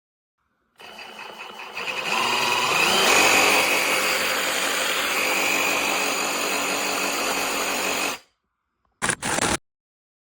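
Cordless reciprocating saw running: it starts softly, comes up to full speed about a second later, runs steadily for about six seconds and cuts off, then gives two short blips near the end.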